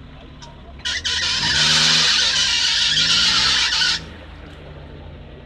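Small off-road 4x4 revving as it drives through a muddy puddle, its engine rising and falling twice. A loud hiss of spinning tyres churning water and mud starts abruptly about a second in and cuts off sharply about three seconds later.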